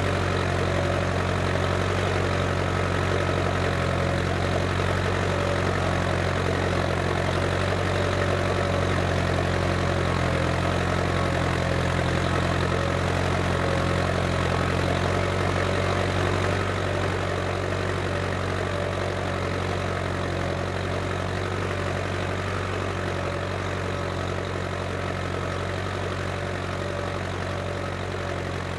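Case International 885XL tractor's diesel engine running steadily while ploughing, a low even drone with a faint whine above it. It grows slightly quieter a little past halfway.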